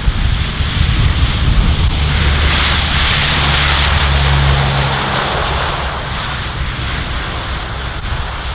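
An aircraft flying past at an airshow: a steady engine drone that swells about two seconds in, peaks a couple of seconds later and fades. Wind buffets the microphone throughout.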